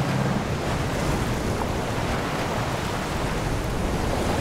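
Steady rushing noise of wind and water from a sailboat under way: wind across the microphone and small waves washing along the hull.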